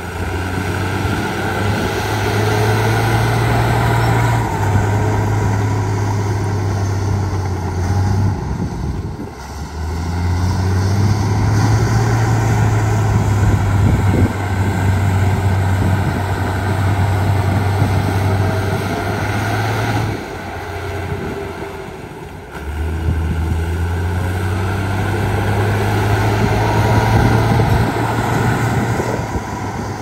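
Heavy diesel engine of earthmoving equipment working under load. Its low note steps up and down in pitch, and it eases off twice for a couple of seconds before picking up again.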